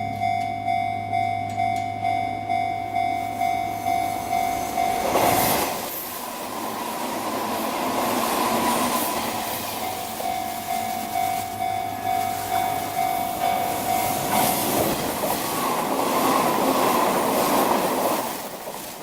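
Level-crossing warning bell pulsing about twice a second, then a train runs through the crossing from about 5 s in, with wheels clattering over the rail joints for some 13 s. The bell shows through again partway through the pass, and the train noise drops off near the end.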